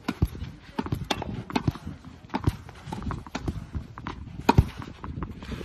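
Tennis balls struck with a racket and hitting the clay court and the backstop, a string of sharp knocks at irregular intervals, the loudest about four and a half seconds in.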